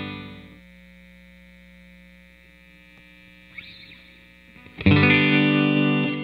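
Electric guitar with a hand-wound P90 pickup (pickup #2, coil tap at 30% reduction, played on the full-wind setting). A strummed chord dies away in the first half second, leaving a faint hum for about four seconds. A new chord is strummed near the end and rings.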